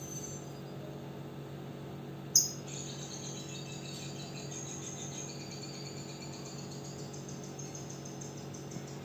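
Lovebird giving a sharp call about two seconds in, then a long, rapid, evenly pulsed chattering trill (the 'ngekek') that keeps going, over a steady low hum.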